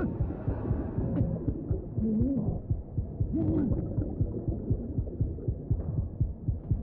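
Film sound of an underwater scene: a dense, muffled low rumble of rapid thumps and churning water, with two short wavering tones about two and three and a half seconds in.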